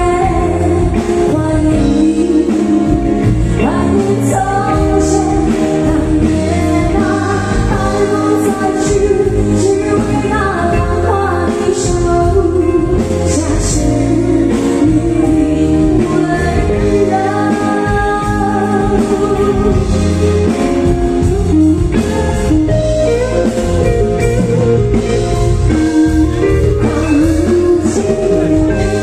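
A female vocalist singing a slow Mandarin ballad with a live band behind her, the sung melody held in long notes over a steady bass.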